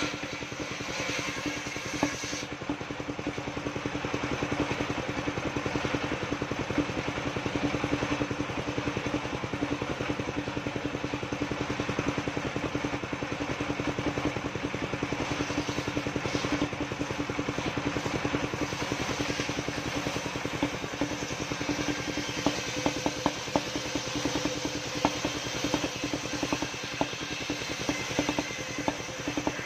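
Engine of a vehicle-mounted circular sawmill running steadily at constant speed, driving the saw blade. Scattered light clicks and knocks come over it.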